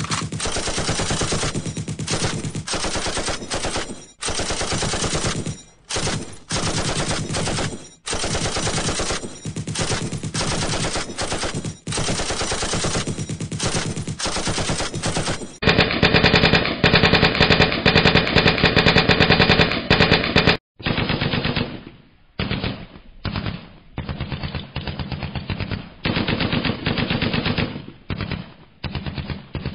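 Machine-gun fire sound effects: rapid automatic bursts, one run after another with short breaks. About halfway through the firing gets louder, and near the end the bursts become shorter and more broken up.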